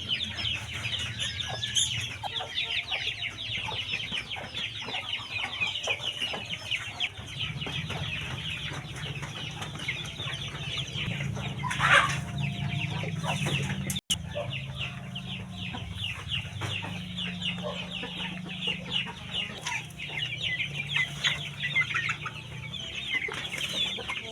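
A large flock of young chickens cheeping and clucking all at once, a dense chatter of many short high calls, with one louder call about twelve seconds in. A steady low hum runs underneath.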